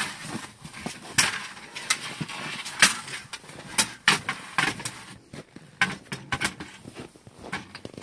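The metal legs of a folding camp table or seat clicking and clacking as it is unfolded and set up, with fabric rustling in between. The clacks come at irregular moments, the sharpest about a second, three seconds and four seconds in.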